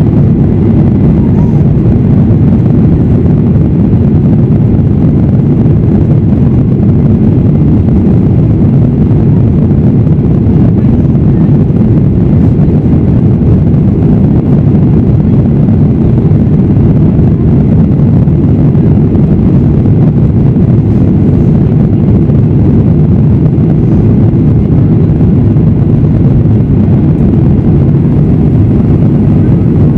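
Cabin noise of a Boeing 737-800 at takeoff thrust during takeoff and initial climb: a loud, steady, low roar of its CFM56-7B turbofan engines and rushing air, heard from inside the cabin at a window seat over the wing.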